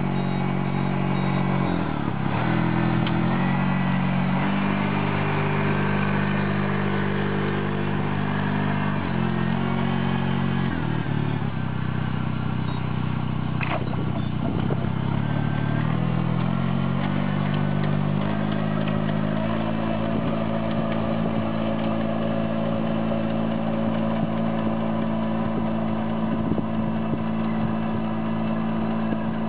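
Riding rice transplanter's engine running as the machine works through a flooded paddy, its pitch stepping up and down as the speed changes, then holding steady for the last third.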